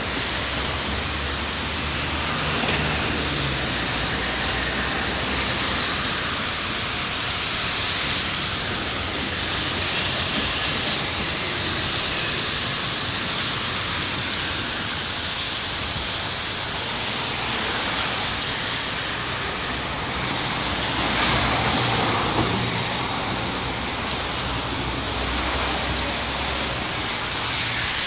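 Steady hiss of city traffic on rain-wet roads, with engine rumble coming and going; one vehicle passes louder about three-quarters of the way through.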